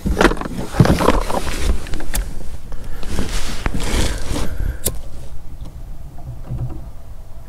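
Scraping and rustling of gear being handled in a fishing boat, with two sharp clicks, loudest over the first five seconds and then dying down.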